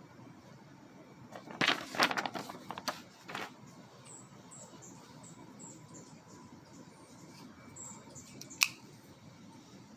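Folding pocket knife (Spyderco Para 3) being handled: a quick cluster of clicks and rustles about two seconds in, then one sharp click near the end.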